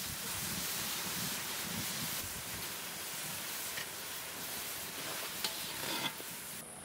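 Red lentils bubbling and hissing in a frothing liquid in a steel karahi, with a steady sizzle. A spoon clicks against the pan a couple of times near the end.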